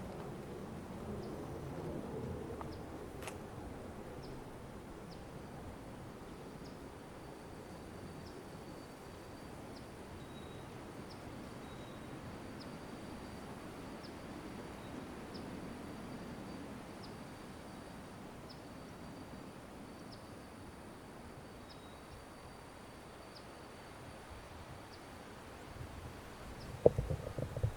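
Quiet woodland ambience: a faint steady hiss of air and leaves, with small high chirps repeating about once a second over a thin high drone. A few sharp thumps come close together near the end.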